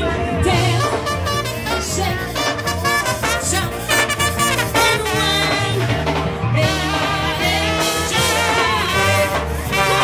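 Live brass band playing an upbeat tune, with a sousaphone bass line moving note to note under saxophone and horns.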